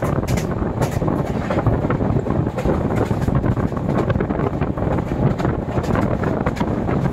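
Passenger train running at speed, heard from an open coach doorway: a steady, loud rumble of wheels on the rails with wind rushing past the microphone.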